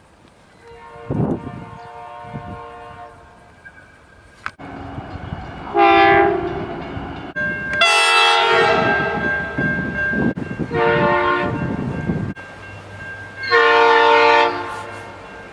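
Train horns sounding a series of five blasts, each a chord of several notes: a fainter blast first, then four louder ones, one of them held for about two seconds. A rumble of a rolling train runs under the middle blasts.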